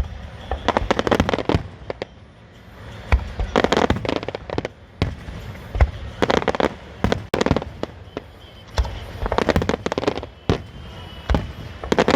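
Fireworks going off in repeated volleys of rapid crackling bangs every two to three seconds, some volleys with a deep boom.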